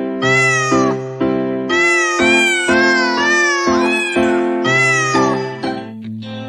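A run of short cat meows, about ten rising-and-falling calls at roughly two a second, over background music with sustained chords. The meows stop near the end and the music goes on.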